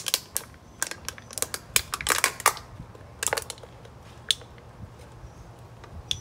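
Aluminium drink can crushed by hand, its thin wall buckling in a rapid series of sharp crinkling cracks over the first two and a half seconds, then a few more just after three seconds and one last crack a second later.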